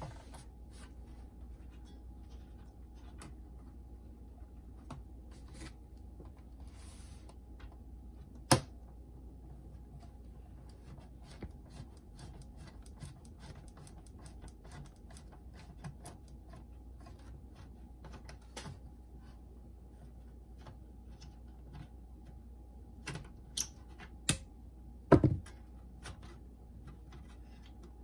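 Scattered light clicks and knocks of plastic and metal as the opened boombox's chassis and circuit board are handled and a long screwdriver works at a stuck screw. There is one sharp knock about eight seconds in and a cluster of louder knocks near the end, over a steady low hum.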